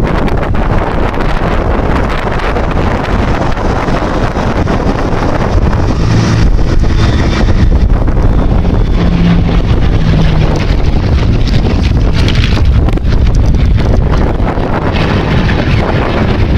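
Rolls-Royce Merlin V12 engine of a Spitfire droning through a display pass, growing louder and fuller about six seconds in as the fighter banks close overhead. Wind buffets the microphone throughout.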